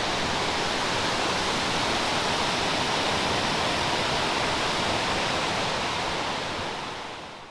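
Steady rush of flowing river water, fading out near the end.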